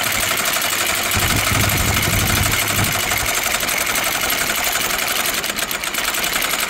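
Maxwell RC10 electric vertical windlass running, its gypsy hauling anchor chain aboard with a fast, even ticking. A deeper hum swells for a couple of seconds near the start.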